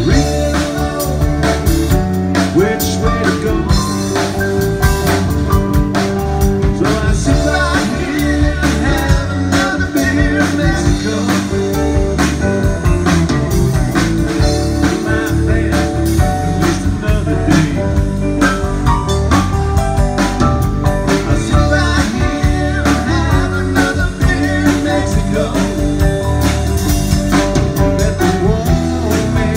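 Live band playing a blues number with drums, guitars and a singer, amplified through the stage loudspeakers.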